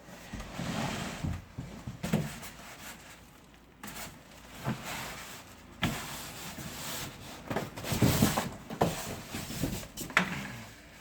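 Packaging and equipment being handled during unboxing: irregular rubbing and rustling with several sharp knocks, the clearest about six, eight and ten seconds in.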